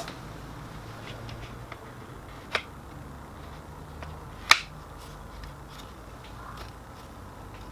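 Two sharp clicks, the second louder, about two seconds apart, as a copier drum cleaning blade is pressed down onto its positioning pins in the drum unit's plastic frame, with faint handling ticks between.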